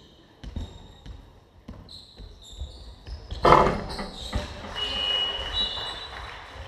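Basketball bounced a few times on a wooden gym floor before a free throw. About three and a half seconds in, a loud bang as the shot hits the rim, followed by sneakers squeaking on the court during the rebound.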